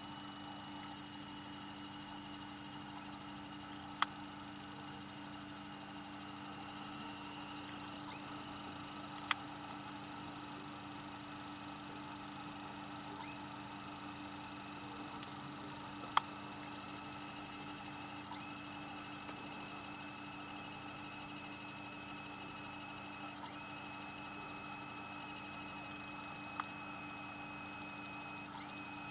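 APC 500 uninterruptible power supply whistling: a steady high-pitched whine over a low hum. It briefly cuts out and glides back in about every five seconds.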